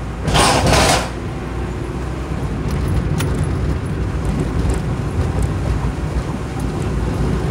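Car driving along a city street, heard from inside the cabin: a steady low rumble of engine and tyres. A brief loud hiss lasting under a second comes about half a second in.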